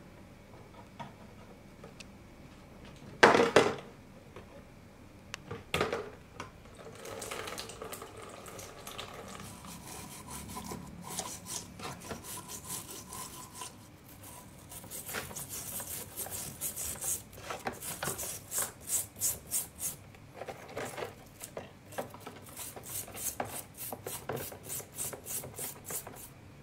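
A flat metal scraper scraping loosened rust off a rusty steel hammer head in a tub of liquid, with two sharp knocks early on, then wet scraping that turns into quick repeated strokes, several a second, in the second half.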